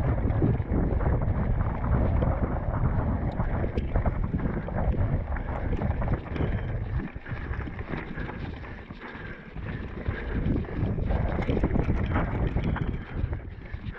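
Wind buffeting the microphone, a rough low rumble with many small knocks and rattles through it, easing off about halfway through.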